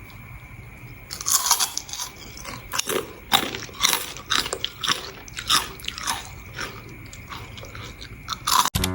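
Crisp crunching of a crispy potato snack being bitten and chewed: a quick irregular run of sharp crunches starting about a second in.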